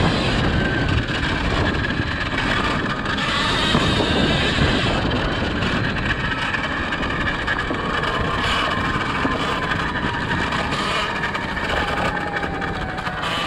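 Surron Ultra Bee electric dirt bike being ridden over dirt and leaves: the electric motor's whine rises and falls with the throttle over a steady rush of wind and tyre noise.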